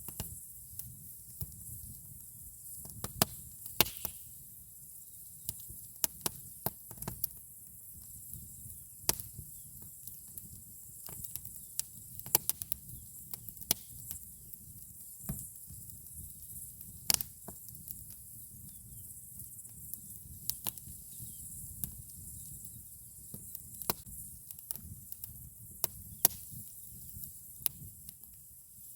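Campfire burning, the wood crackling with many irregular sharp pops and a few louder snaps, over a faint low rumble.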